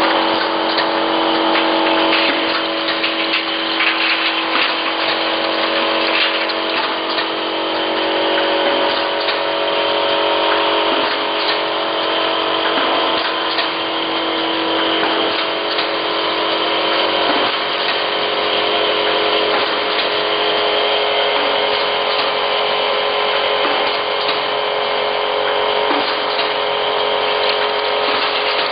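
Automatic filling and capping line for small plastic dropper bottles running: a steady machine hum with several held tones and a constant patter of small clicks and clatter. One of the hum's tones drops out about two-thirds of the way through.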